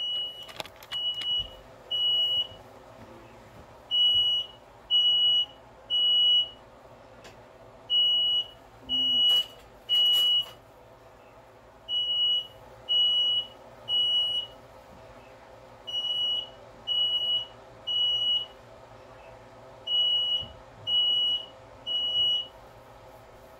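Smoke alarm sounding its three-beep evacuation pattern: groups of three high, half-second beeps, a group every four seconds. It has been set off by the cooking, and the owner calls it so sensitive.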